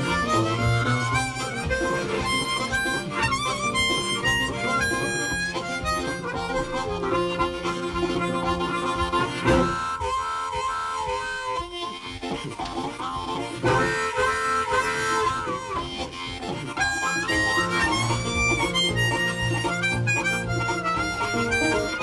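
Background music: a lead melody over a repeating low bass line, thinning out for a few seconds near the middle.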